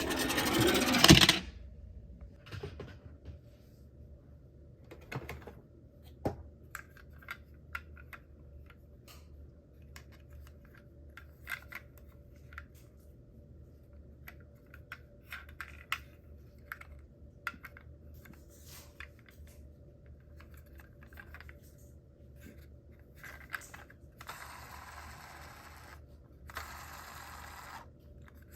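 Small clicks and clinks of toy minicars being handled, scattered irregularly. A louder rustling burst comes at the start, and two spells of steady rubbing noise come near the end.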